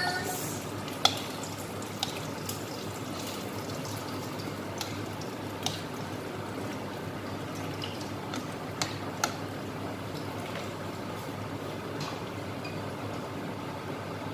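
Chop suey vegetables and chicken simmering in sauce in a wok, with a steady bubbling and sizzling. A ladle clinks against the wok a few times as it is stirred.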